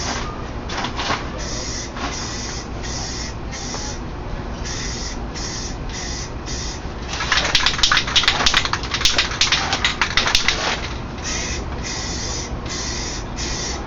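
Aerosol spray cans hissing as paint is sprayed, in short, rapid bursts, with a longer and louder spray from about seven to eleven seconds in.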